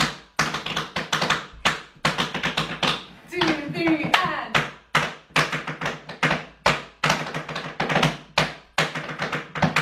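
Two dancers' tap shoes doing nerve taps on the toe: quick bursts of rapid, tremor-driven taps repeated through the drill. A short laugh breaks in about three and a half seconds in.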